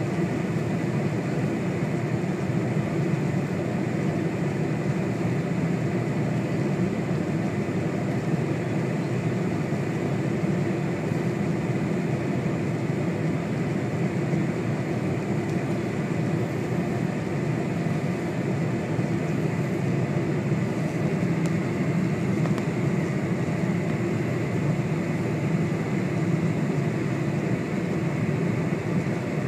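Steady cabin noise inside a Boeing 747 on its descent to land: a low, even drone of its four turbofan engines and the rushing air along the fuselage, with a faint steady whine above it.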